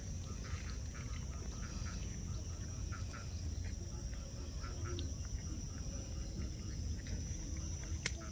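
Outdoor ambience of short animal calls repeating every second or so, over a steady high-pitched whine and a low rumble. A single sharp click sounds near the end.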